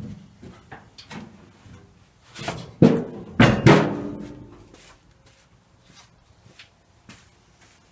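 A series of knocks and clunks, with three loud metallic bangs about two and a half to four seconds in that ring briefly, then a few faint clicks.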